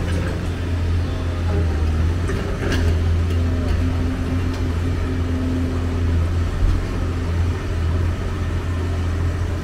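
Hyundai 290 tracked excavator's diesel engine running steadily with a low drone as the machine works, a higher hum rising over it for a couple of seconds in the middle. A short clatter of metal or rubble about three seconds in.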